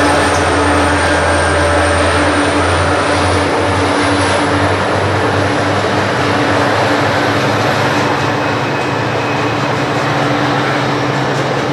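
Grain hopper wagons of a long freight train rolling steadily across an elevated concrete rail bridge: a continuous loud rumble with steady tones and a faint high whine above it. A low hum underneath fades out about four seconds in.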